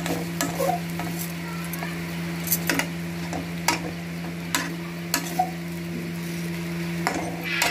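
Spatula stirring and scraping upma in a metal kadai, with scattered clicks of the spatula knocking the pan over a light sizzle. A steady low hum runs underneath and drops away near the end.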